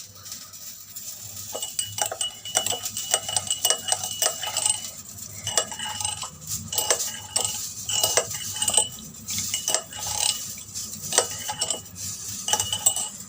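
A metal spoon stirring hot water, lemon juice and honey in a glass, knocking against the sides in many light clinks, some ringing on briefly.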